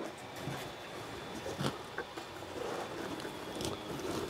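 Faint handling noise of foam packing, with a few light knocks, as a 3D printer's metal gantry is worked loose from its foam insert in a cardboard box.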